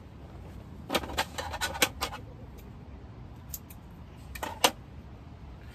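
Small fishing tackle handled in the fingers, giving light clicks and clinks: a quick cluster about a second in, then a few more later on.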